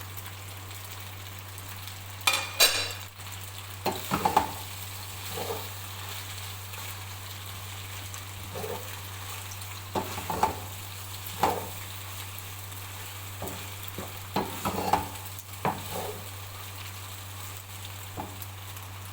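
Spaghetti sizzling in a pan while being stirred, with a spoon scraping and clinking against the pan every few seconds over a steady low hum.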